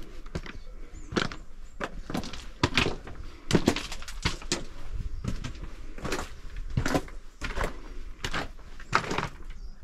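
Footsteps of a hiker on a rocky, gravelly mountain trail, sharp scuffs and crunches of boots on stone and grit at a steady walking pace of a little more than one step a second.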